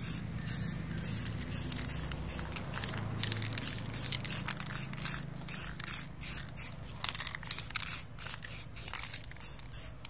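Aerosol spray-paint can hissing as paint is sprayed, in a run of short, uneven spurts.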